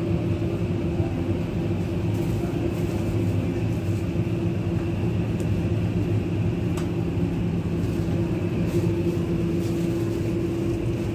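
Steady mechanical hum of a supermarket interior, with a few faint clicks in the middle.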